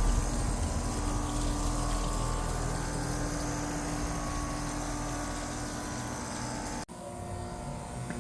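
Carrier central air conditioner outdoor units running: a steady fan whoosh with a low hum and a held tone from the compressor. About seven seconds in it cuts abruptly to a quieter unit running with a different, higher tone.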